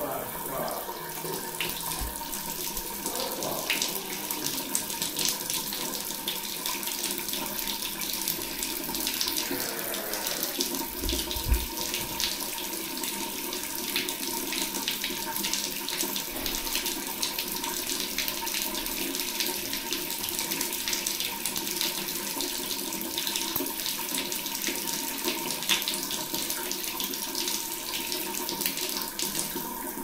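Shower water running steadily, spraying down and splashing onto a tiled floor.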